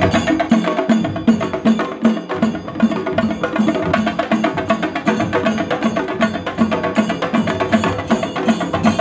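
A troupe of drummers playing shoulder-slung barrel drums with sticks in a fast, dense rhythm, a steady low beat about three times a second under rapid stick strokes.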